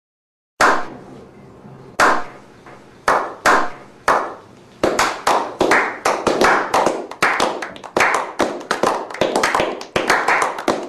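Hand clapping: a few single claps spaced about a second apart, then quicker, steady clapping at about four claps a second.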